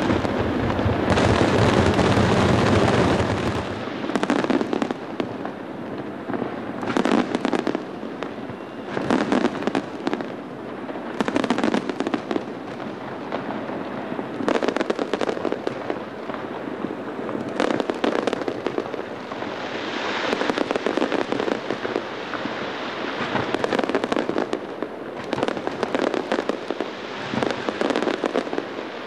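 Aerial fireworks going off in dense, overlapping volleys of bangs and crackle. The heaviest barrage, with a deep rumble, comes in the first few seconds, and irregular clusters of bursts follow.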